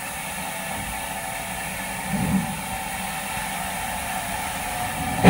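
Steady hiss of steam from a steam locomotive out of view, with a brief low bump about two seconds in.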